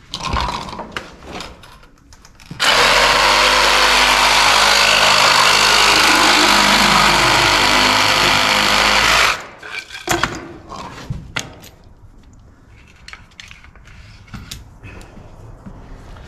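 A power drill runs for about seven seconds, turning an internal pipe cutter's thin wheel inside a plastic drain pipe. Its pitch sags slightly as the wheel bites. Short knocks and clatter come before and after it.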